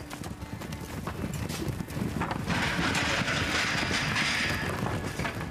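A herd of mustangs running and milling on dirt, many hooves drumming irregularly on the ground. A hissing rush of noise rises about halfway through and fades after about two seconds.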